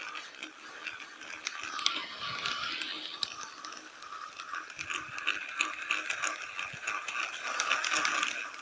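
Fishing reel being cranked steadily, a fast run of fine mechanical clicking from its gears as the jig is retrieved.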